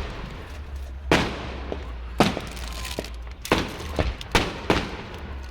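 Fireworks display going off: a run of sharp bangs, about six or seven in five seconds at uneven gaps, each trailing a short echo.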